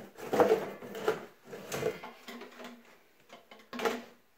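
Handling of hollow plastic water-softener parts around an empty plastic brine tank: a few bursts of knocks and scraping, the loudest about half a second in and another near the end.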